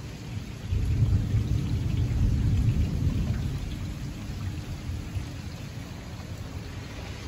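Thunder rumbling, coming in about a second in, loudest for the next two seconds and then slowly fading, over the steady hiss of falling rain.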